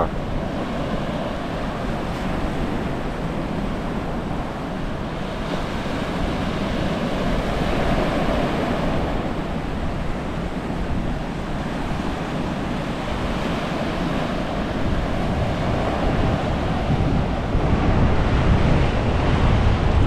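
Surf breaking and washing up onto a sandy beach, rising and falling in slow swells, with wind buffeting the microphone. The low wind rumble grows stronger near the end.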